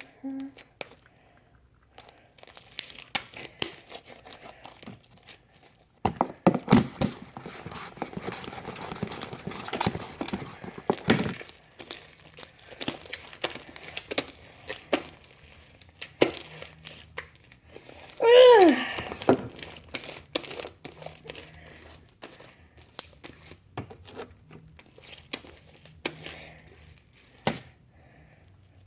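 Hands squishing and stretching sticky homemade slime: irregular crackling, popping clicks, with a denser stretch about a quarter of the way in. Just past halfway there is one short vocal sound that drops steeply in pitch, the loudest moment.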